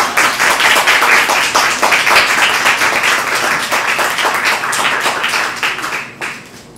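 Audience applause, many hands clapping, fading out and stopping about six seconds in.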